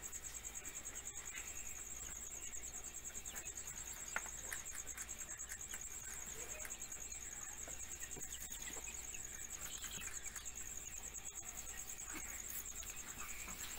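Night insects, likely crickets, trilling steadily on one high pitch. Scattered faint clicks and rustles run under them, with one sharper tick about four seconds in.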